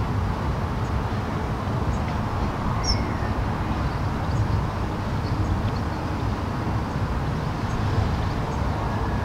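Outdoor background ambience: a steady low rumble with a few brief high chirps.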